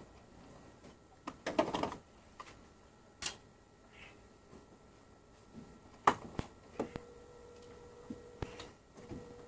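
Plastic clicks, knocks and a short scraping rattle as the outer casing of a split-system air conditioner's indoor unit is unclipped and lifted off. The rattle comes about a second and a half in; sharp single clicks follow around six to seven seconds in.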